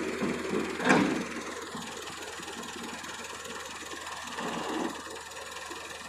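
Engine of heavy machinery running steadily, with one sharp knock about a second in and a smaller rise in noise later.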